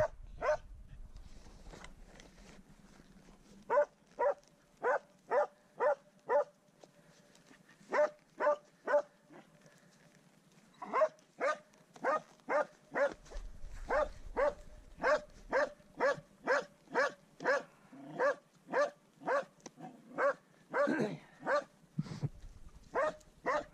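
Norwegian elkhound barking steadily at a wild boar it is holding at bay. The barks are short, evenly spaced and repeated about two a second, starting a few seconds in with two short pauses before they run on without a break.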